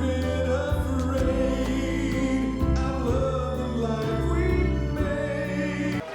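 Music: a choir singing over deep bass notes, cutting off suddenly near the end.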